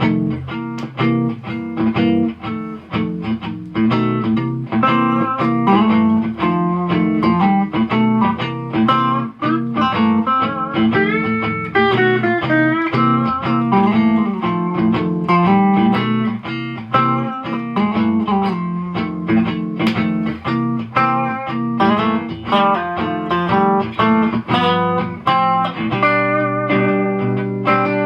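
Electric guitar played through a stock Mesa Boogie 15-inch speaker: a melody of single notes over a repeating looped guitar backing.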